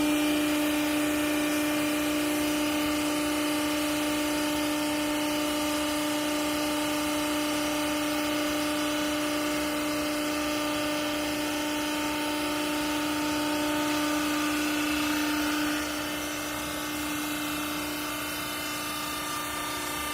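Hydraulic baler's pump unit running with a steady hum, easing off and dropping in level about sixteen seconds in.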